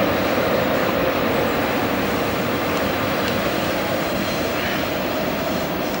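A train running steadily, a continuous rushing rumble with a low drone.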